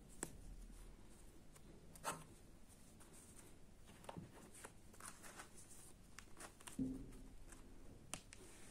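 Faint rustling and a few soft clicks from hands handling a crocheted zippered pouch, the loudest about seven seconds in.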